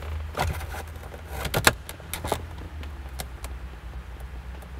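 2013 Toyota RAV4 plastic dash trim, the centre air vent and radio bezel, being pressed back in by hand: a handful of sharp clicks and knocks as the clips seat, the loudest about one and a half seconds in. A steady low hum runs underneath.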